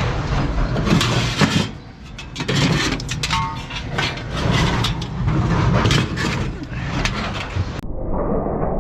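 Scrap metal being thrown off a load, a run of sharp clanks and clatters over a steady low rumble. Near the end the clatter stops abruptly and only a muffled rumble is left.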